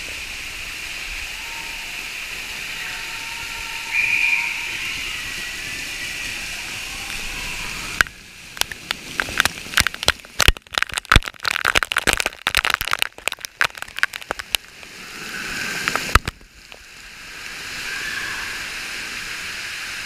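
Waterfall water pouring down onto a lazy-river tube rider: a steady splashing hiss. From about eight to sixteen seconds in it breaks into rapid, irregular cracks and pops as the falling water strikes the camera directly.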